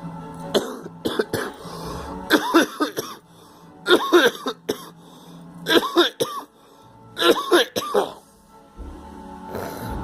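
Repeated coughing: a series of harsh cough fits, each a short run of coughs, coming every second or two.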